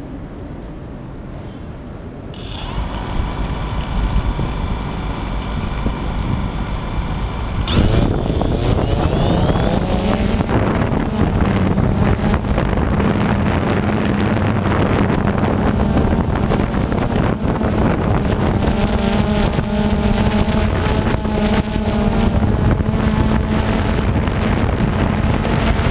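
Multirotor camera drone's electric motors and propellers, heard close from its own onboard camera. About two seconds in the motors start turning at idle with a steady high whine; at about eight seconds they spool up with a rising hum as the drone lifts off, then hover with a steady buzzing hum and wind rush.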